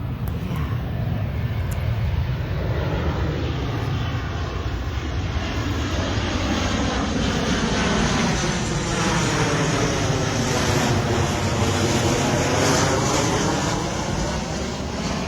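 A fixed-wing aircraft's engine passing overhead, growing gradually louder to its nearest point about three quarters of the way through and then beginning to fade.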